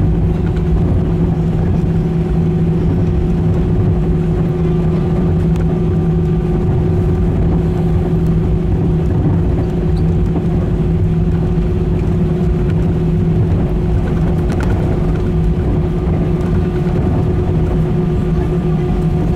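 Airbus A320's CFM56 turbofan engines running at taxi power, heard from inside the cabin by the wing: a steady drone with a few constant hums over a low rumble.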